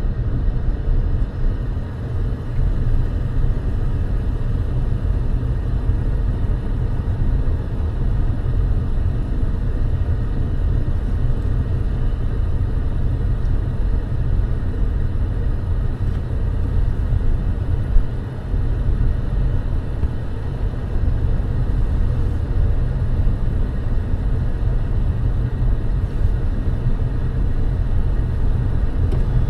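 Steady low rumble of a car driving on the road, with a brief bump about eighteen seconds in.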